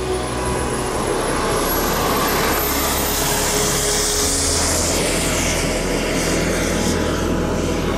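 Model jet turbine engine at high power as a radio-controlled scale jet makes its takeoff run and climbs away: a steady rush of jet noise with a thin high whine rising slowly in pitch, growing louder a second or two in.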